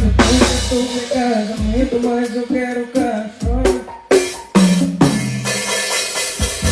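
Drum kit playing along with a song, with kick, snare and rimshot hits over a gliding melody and bass. The music drops out briefly about four seconds in, then comes back with a low held bass note.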